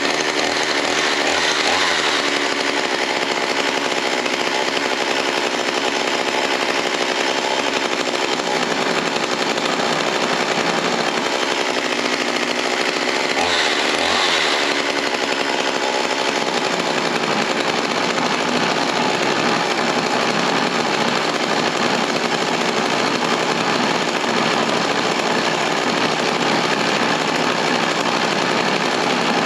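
Stanley two-stroke chainsaw engine running steadily at a fast idle with its air filter removed.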